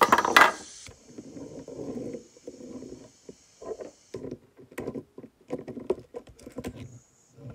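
Plastic toy train parts, a Shooting Star Gordon body shell and chassis, being handled and set down on a table: a loud clatter in the first second, then a run of small clicks and knocks.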